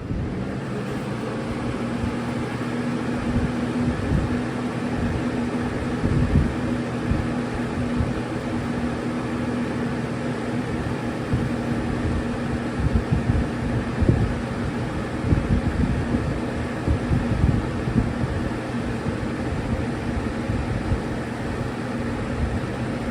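Lasko Weather-Shield Premium Plus box fan, model 3743, with a PSC motor, running on high. It makes a steady rush of air with a constant motor hum, and its airflow gusts against the microphone in low, uneven thumps.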